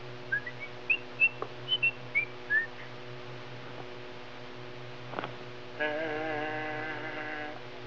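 A person whistles a short tune of about eight quick notes that climb and then fall. A few seconds later comes a single held, slightly wavering pitched tone lasting about a second and a half, over a steady electrical hum.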